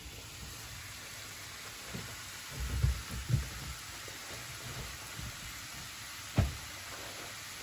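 Minced veal and onion sizzling steadily in a frying pan. A few low thumps come a little under three seconds in, and one sharp knock comes about six seconds in.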